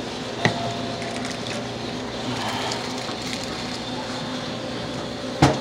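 Steady low hum of a store interior's room noise, with two sharp knocks, one about half a second in and one near the end.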